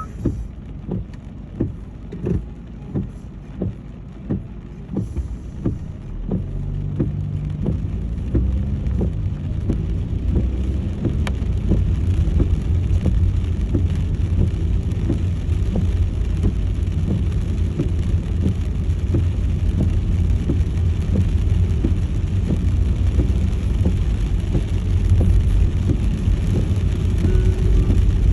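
A car in the rain, heard from inside: at first a soft low hum with a regular click or knock about every 0.7 seconds. About six seconds in the car moves off, with the engine pitch rising, and from then on a steady loud rumble of engine and tyres on the wet road, with rain on the car.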